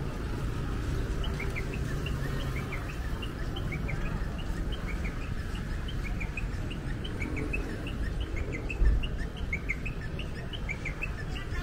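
Many small birds chirping in quick short notes, several a second, over a steady low rumble of road traffic. A brief low bump about nine seconds in.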